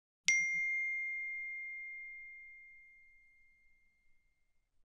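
A single bell-like ding, struck once, with one clear ringing tone that fades away over about four seconds.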